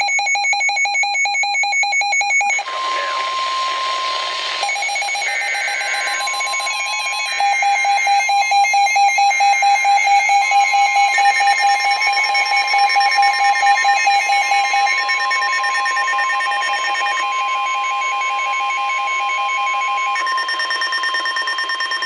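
Overlapping NOAA Weather Radio alert audio: the steady high warning alarm tone that announces a warning is about to be read, running on through the stretch, with three short buzzy digital header bursts (SAME code) about a second apart in the first half and other steady tones layered under it.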